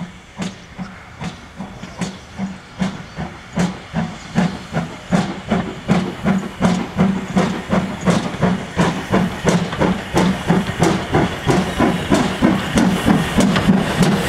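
Steam locomotive accelerating away with a train of coaches: a regular exhaust chuff from the chimney that quickens from about two and a half beats a second to about four, and grows louder as the engine draws close.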